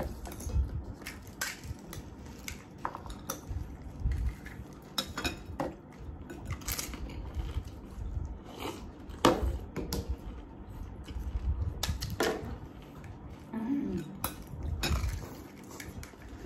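Plates, bowls and tableware clinking and clattering on a table while golgappas (pani puri) are eaten: scattered sharp clinks and taps, with low bumps in between.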